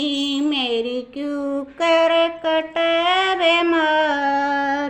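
A solo voice singing the closing lines of a Hindi devotional bhajan in long, held notes with short breaks, stopping just before the end.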